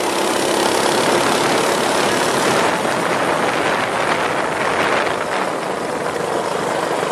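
Minibike engine running at riding speed, buried in a steady rush of wind and road noise.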